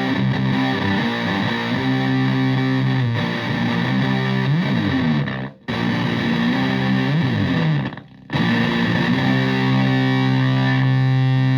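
Single-coil Stratocaster played through a Marshall Supa Fuzz (Tone Bender MkII-style) fuzz pedal into a Twin Reverb-style amp: thick, fuzzy chords with sliding notes. The sound cuts out briefly twice, about five and a half and eight seconds in, and ends on a long sustained chord.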